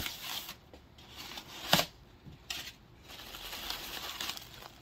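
Crumpled kraft packing paper rustling and crinkling as a hand digs through it in a cardboard box, with a sharp click or knock a little under two seconds in, the loudest moment.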